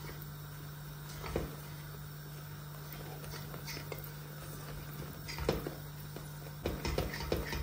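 Long metal spoon stirring a thick, cooking apple-molasses and starch mixture in a stainless steel pot, with occasional clinks and scrapes of the spoon against the pot, several close together near the end. A steady low hum runs underneath.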